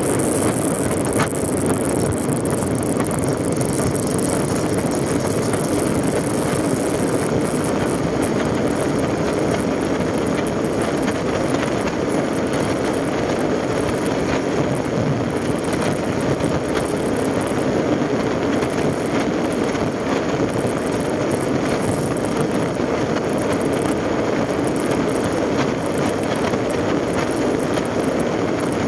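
Motorcycle riding at a steady speed: wind rushing over the microphone and road noise, with the engine running underneath without changes in speed.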